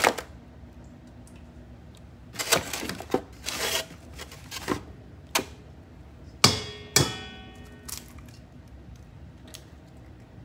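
An egg rapped against the rim of a stainless steel mixing bowl: a sharp knock about six and a half seconds in that sets the bowl ringing briefly. Before it, scattered knocks and taps of eggs, shells and bowls being handled.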